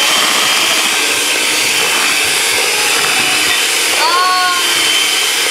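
Electric hand mixer running steadily with a high whine, its beaters churning through thick cake batter in a plastic bowl.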